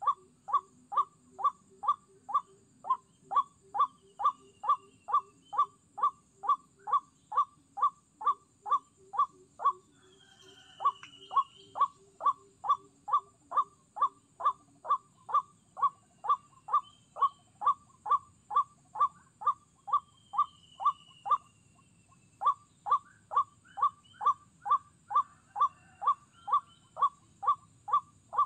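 White-breasted waterhen call: one sharp note repeated steadily about twice a second, pausing briefly about a third of the way through and again past two-thirds. Faint high whistles from other birds come in now and then.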